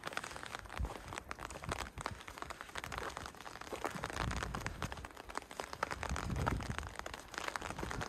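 A hiker's footsteps crunching and scuffing over rough limestone rock and grit, an irregular run of small crackles and scrapes.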